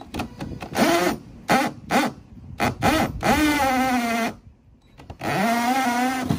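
Cordless drill boring a hole through a plastic kayak hull, pulsed on the trigger: several short bursts, then two longer runs, the motor spinning up to a steady whine each time.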